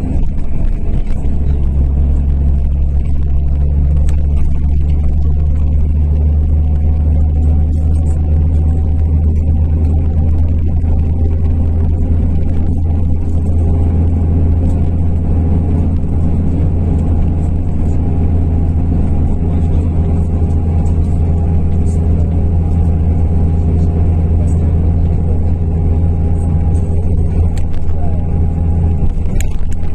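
SOR CN12 bus running at steady cruising speed, heard from inside the cabin: a loud, even low engine and drivetrain drone with road noise, the lowest part of the drone growing stronger about a second in.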